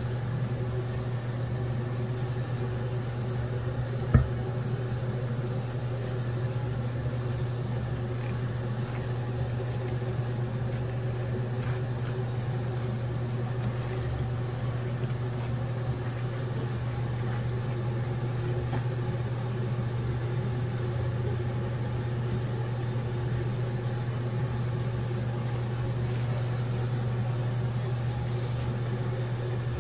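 A steady low mechanical hum, with one short click about four seconds in.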